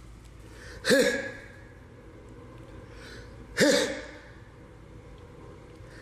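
A man's short gasping cries, twice, about two and a half seconds apart, each a sharp breathy onset with a quick rise and fall in pitch that then trails off.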